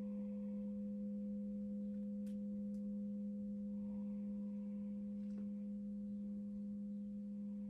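Crystal singing bowl sounding a steady, sustained tone: two pure pitches, one low and one higher, held together without a break.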